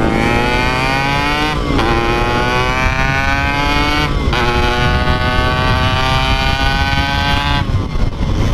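Two-stroke Yamaha RX-King motorcycle accelerating through the gears. Its engine note rises steadily in each gear and drops back at three upshifts.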